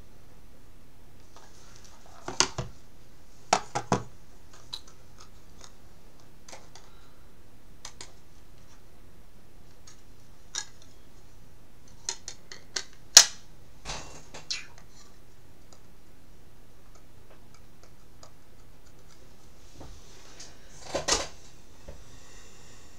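Hard plastic trading-card holders clicking and knocking against each other and the desk while a card is handled. The clicks come irregularly, in small clusters, with the sharpest about thirteen seconds in and another burst near the end.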